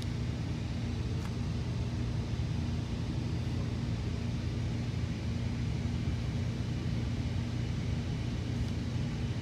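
Steady low rumble and hum of a Metra commuter train, heard inside a Nippon Sharyo bi-level coach.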